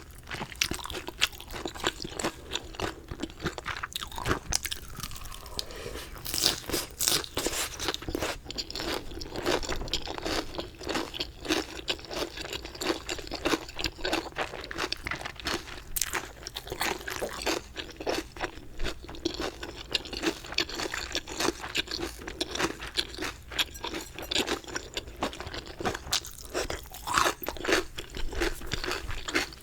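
Close-up eating sounds of 갈비레오 chicken: crisp crunching bites and chewing, in a dense, irregular run of crunches.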